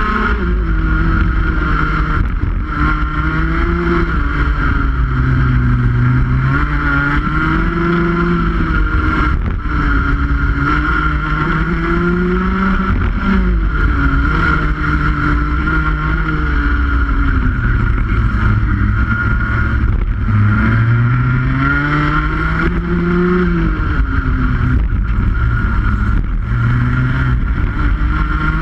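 Rotax Max 125cc single-cylinder two-stroke kart engine at racing speed, its pitch climbing and dropping over and over as the kart accelerates and slows for corners.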